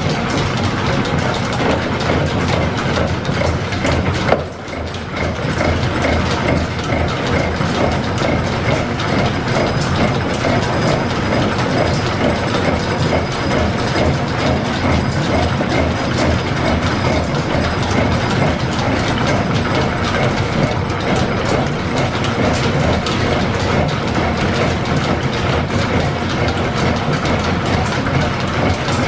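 Line-shaft-driven Brown & Sharpe horizontal milling machine running, its gear cutter milling teeth into a gear blank set on a dividing head, with a steady clattering of gears and belts. A single sharp knock comes about four seconds in, followed by a brief lull.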